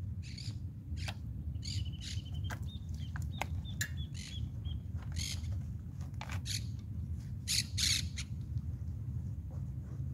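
Small birds chirping, with a quick even trill about two seconds in, over a steady low rumble. Scattered short rustling sounds come from hands handling the bicycle's bags.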